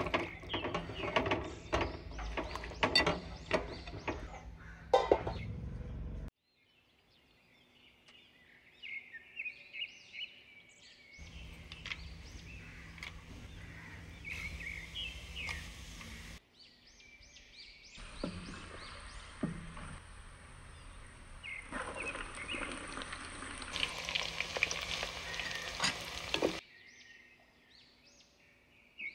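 For about six seconds, hands squeeze and toss chicken pieces in a curd and spice marinade, making wet squelching and clicking. After a sudden stop, hot oil sizzles in a clay pot as whole spices and cumin go in, and later as chopped onions fry and are stirred. Birds chirp behind it.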